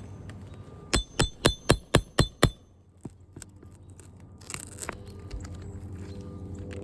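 A hammer striking a steel nail-removal tool seven times in quick succession, about four blows a second, each with a bright metallic ring, driving it under a shingle nail. A short scraping rustle follows a couple of seconds later.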